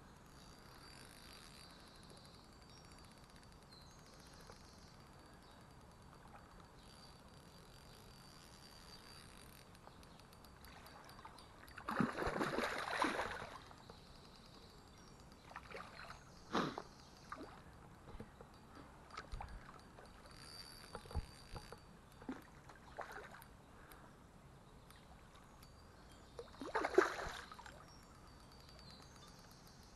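Hooked wild brown trout splashing at the river's surface as it is played in close: a series of irregular splashes, one long heavy splash of over a second and another big one near the end, with smaller splashes between, over the faint steady run of the river.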